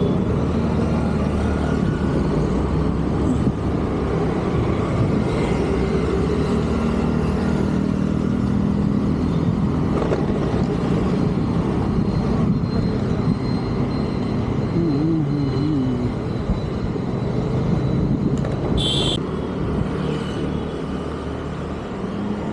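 Road traffic with a motor vehicle engine running steadily. A short high-pitched beep comes near the end.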